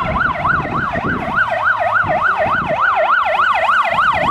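Fire engine's siren on a fast yelp, its pitch sweeping up and down about four times a second, over a low rumble.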